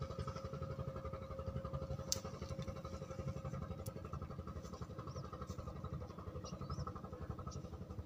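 A small engine running steadily at idle, a fast, even putter with a faint hum over it. A single sharp click about two seconds in.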